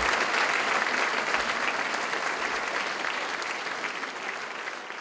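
Concert audience applauding, the applause gradually fading.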